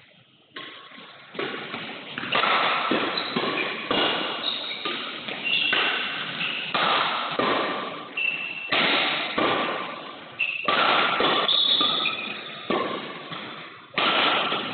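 Badminton rally: sharp racket strikes on the shuttlecock about every half second to second, each echoing in the large hall, with short high squeaks from players' shoes on the court between them.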